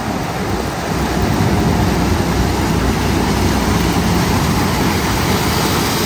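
CLAAS Lexion 8600 combine harvester running steadily: a dense, even machine noise with a heavy low rumble that grows a little louder about a second in.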